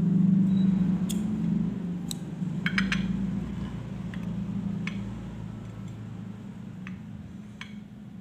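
Scissors snipping through cotton vape wick, then light clicks and clinks of the metal RTA deck against a ceramic plate, all over a steady low hum.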